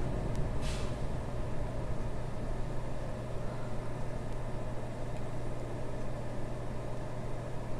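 Steady low hum under an even background hiss, with one brief soft swish about a second in.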